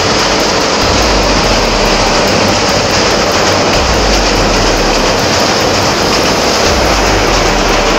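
Bangladesh Railway InterCity passenger train crossing a steel girder bridge overhead: a loud, steady rumbling noise with no breaks.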